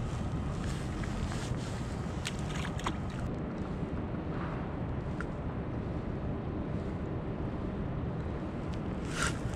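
Wind buffeting the microphone as a steady low rumble, with a few faint short clicks in the first three seconds.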